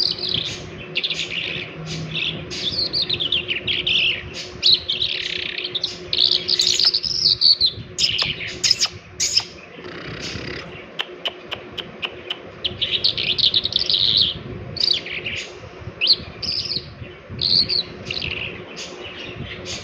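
A songbird sings a run of rapid, warbling phrases that repeat almost without pause. Several sharp clicks come in about eight to twelve seconds in, and a faint steady hum lies underneath.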